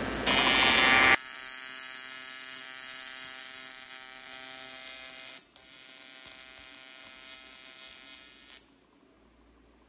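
AC TIG welding arc on aluminum, buzzing steadily. A louder hiss comes for about the first second, the arc breaks off briefly about halfway through, and it stops abruptly near the end.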